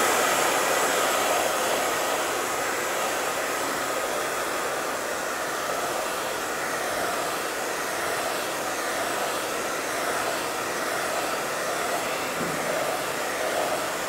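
Hand-held hair dryer running steadily, blowing air over a decoupaged box to dry freshly applied sealer.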